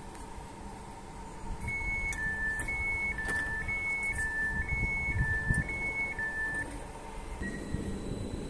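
A regional electric train's door-closing warning: a two-tone beep alternating high and low, five pairs in a row, over the low rumble of the standing train's equipment. The warning signals that the doors are about to close before departure.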